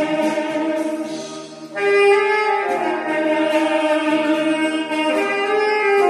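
Alto saxophone playing a slow melody in long held notes. The sound thins out briefly about a second in, then a new phrase enters loudly just before the two-second mark.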